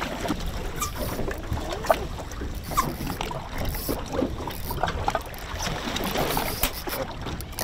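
Wind buffeting the microphone and choppy water slapping against a small boat's hull, with scattered knocks and clicks.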